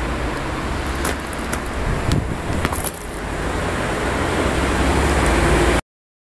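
Riding noise on an e-bike tour: a steady rumble of wind and rolling tyres with a low hum, a few sharp clicks about one to three seconds in, and a sudden cut-off near the end.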